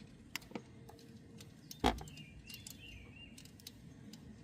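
A few light metallic clicks and one sharper click, from a nut being worked off the new starter and the parts handled.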